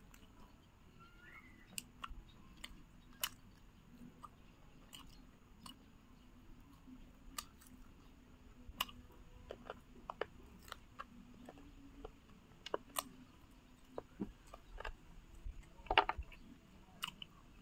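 Crisp fried-chicken crust crunching and being chewed close to the microphone, in short sharp crunches every second or so, with a louder burst of crunching near the end.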